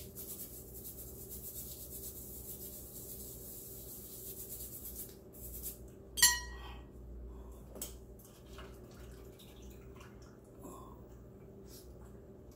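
A toothbrush scrubbing a diamond ring with toothpaste in quick, rasping strokes. About six seconds in comes a single sharp ringing clink, followed by a few light clicks.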